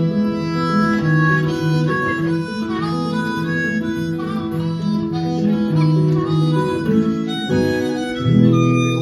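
Harmonica and guitar playing the song's closing instrumental, with no singing, then settling onto a held final chord about eight seconds in.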